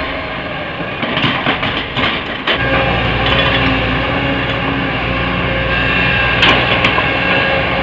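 Heavy diesel machinery running, with a quick clatter of knocks in the first couple of seconds; about two and a half seconds in, a deeper engine sound steps up and holds steady, with a couple more sharp knocks later on.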